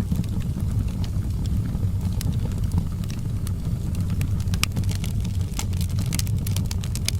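Wood fire burning in a fireplace, a steady low rumble with scattered sharp crackles and pops that come more often in the second half.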